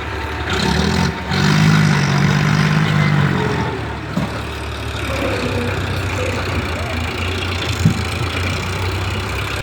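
Diesel engine of a tractor or excavator running steadily, pulling harder for about three seconds near the start, with a single sharp knock near the end.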